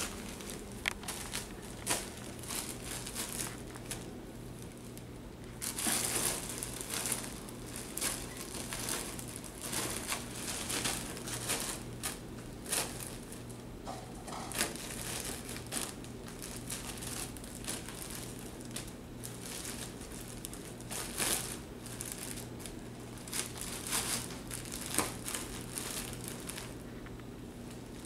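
Thin plastic packing material crinkling and crackling in irregular bursts as kittens pounce on it and tug at it.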